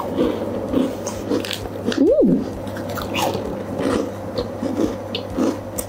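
Close-up chewing of small milk cookies, a run of soft crunches. About two seconds in there is a short tone that rises and then falls.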